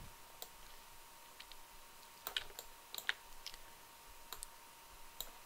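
Scattered faint clicks of a computer mouse and keyboard, some in quick pairs or threes, over a faint steady tone.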